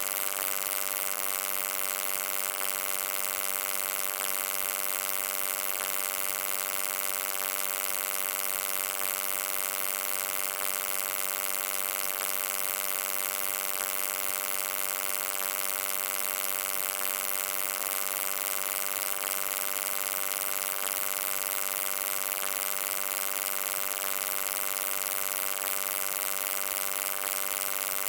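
Steady electrical hum: a buzz with many evenly spaced overtones and a strong hiss above it, unchanging throughout.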